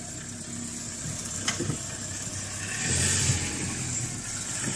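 Small hatchback's engine idling steadily, swelling a little louder about three seconds in, with a single click about a second and a half in.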